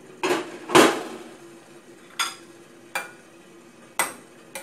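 Two clanks of an enamel cookware lid being handled, the second ringing briefly, then a series of sharp clinks of a utensil against a dish, about one a second, as in stirring or mixing.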